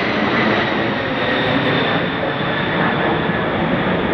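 Boeing 747 Shuttle Carrier Aircraft passing low overhead and moving away: loud, steady jet noise from its four engines, with a thin whine that slowly falls in pitch.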